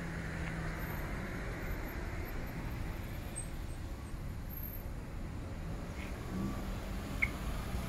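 Steady low outdoor rumble of distant road traffic around an airport access road, with no single vehicle standing out.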